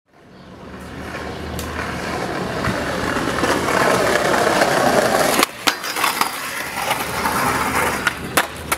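Skateboard wheels rolling over hexagonal stone pavers, a rough rumble that fades in and grows louder, then drops off suddenly about five and a half seconds in. A few sharp clacks follow, typical of skateboard decks knocking on the pavement.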